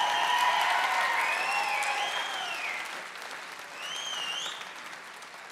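Audience applauding and cheering, with high whoops over the clapping. The applause is loudest in the first couple of seconds and fades in the second half, with one more whoop about four seconds in.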